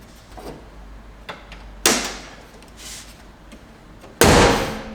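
Two sudden thumps about two seconds apart. The second, near the end, is the louder and rings on briefly.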